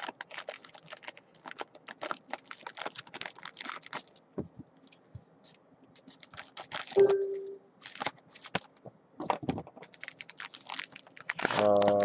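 Crinkly foil trading-card pack wrapper being handled and torn open, a dense run of sharp crackles and clicks.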